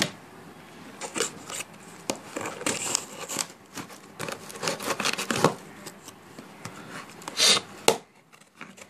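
Cardboard shipping box being opened by hand: packing tape cut and torn, with cardboard flaps scraping and rustling in uneven strokes and a louder rip about seven and a half seconds in.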